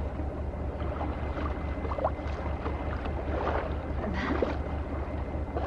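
Boat engine running, a steady low drone, with a few faint knocks over it.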